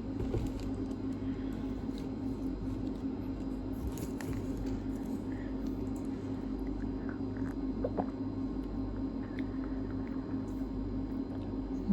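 A steady low hum with a few faint, scattered clicks and small handling sounds.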